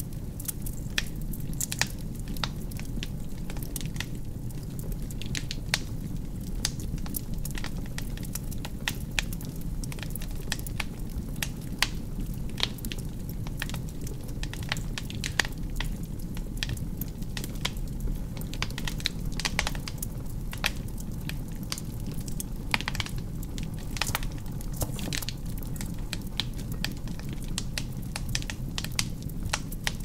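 Wood fire burning in a fireplace: logs crackling with frequent irregular sharp pops over a steady low rush of the flames.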